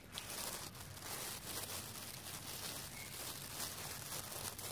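Long-tailed macaques cracking and eating peanuts: a steady run of small dry crackles and rustling from the shells.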